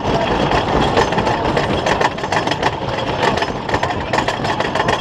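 Roller coaster train clattering along a wooden track: a dense, rapid rattle of clicks over a low rumble.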